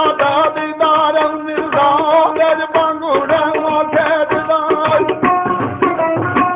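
Punjabi folk music: tabla drumming under a gliding melody line.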